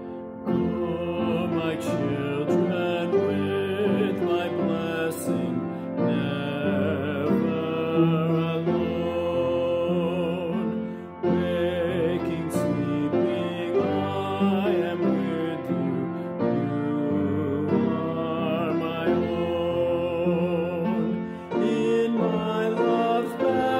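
A man singing a hymn solo with vibrato, accompanied by piano.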